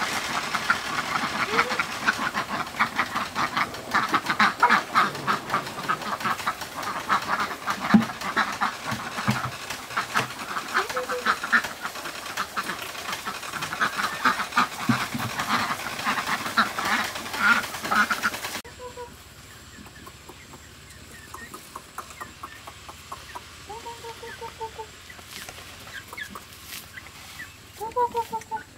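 Ducks eating wet feed from a trough, their bills clattering in a fast, busy patter, with an occasional quack. About two-thirds of the way in it gives way to a quieter stretch of young chickens clucking now and then as grain is scattered.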